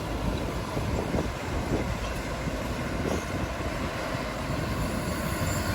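Heavy diesel earthmoving machinery running steadily, a dense low mechanical noise without pauses.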